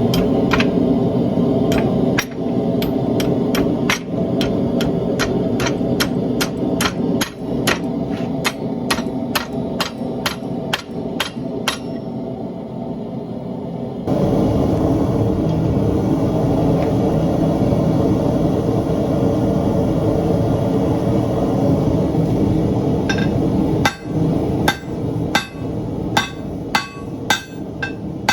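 Hammer blows on hot bar stock being forged into hooks, a quick steady rhythm of about two sharp ringing strikes a second over the steady roar of a running forge. The hammering stops about twelve seconds in, the forge roar gets louder a couple of seconds later, and the hammering starts again near the end.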